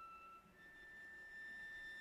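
Solo cello bowing quiet, high held notes. One note ends about half a second in and a higher note starts just after it and is held.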